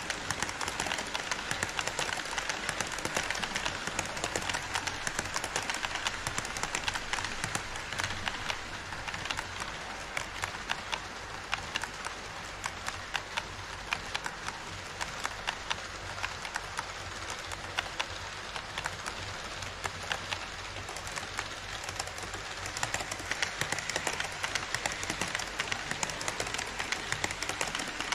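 HO scale model trains running on KATO Unitrack: a rapid, steady clatter of wheels clicking over the track. It is louder as coaches pass close at first, eases off in the middle, and grows louder again near the end as an E5 Shinkansen model runs past close by.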